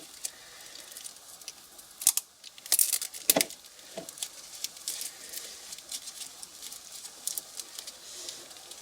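Plastic crinkling and tearing in short rustles and sharp clicks, loudest about three seconds in, as the ends of an air conditioner's disconnected pipes are covered to keep dirt out.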